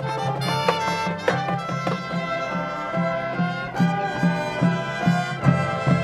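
High school marching band playing: the brass section carries sustained chords over a steady low beat that grows stronger in the second half.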